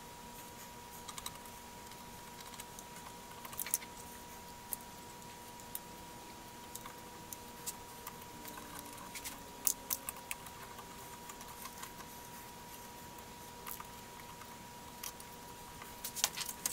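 Scattered light metallic clicks and scrapes as a pick works flecks and beads of solder off a soldering-gun-heated wire terminal, over a faint steady high tone.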